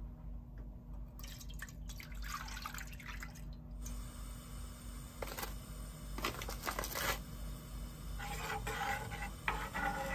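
Milk pouring from a glass measuring cup into a frying pan, a splashing trickle lasting a couple of seconds, followed by shorter bursts of liquid sounds and, near the end, a spoon stirring the milk in the pan.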